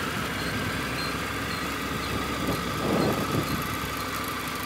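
Motorcycle engine idling steadily while the bike rolls slowly on idle with no throttle. There is a brief swell in the sound about three seconds in.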